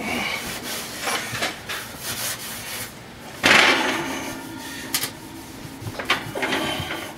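A sponge wiping and scrubbing the grimy enamel floor of an oven in short rubbing strokes. About three and a half seconds in there is a louder, brief rush of noise, followed by a few sharp clicks.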